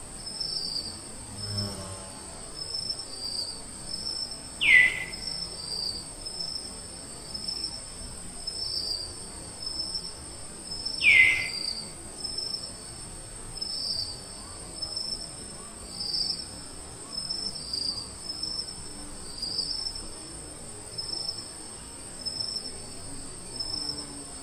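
Forest insects: a steady high-pitched buzz with a regular pulsing chirp above it. Two loud, short calls slide down in pitch, one about five seconds in and one about eleven seconds in.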